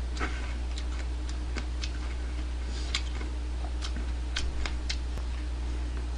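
Low steady hum with about a dozen faint, irregular clicks scattered through it.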